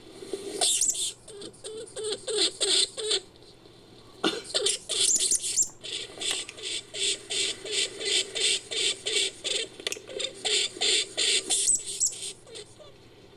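Creature sound effect for a giant lemming: rapid, high-pitched rodent-like squeaks and chirps in quick trains. A first burst is followed by a short pause, then an even run of several squeaks a second.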